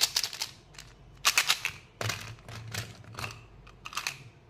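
Plastic candy packaging being handled and opened: sharp crinkles and clicks in short bursts, about five clusters over four seconds.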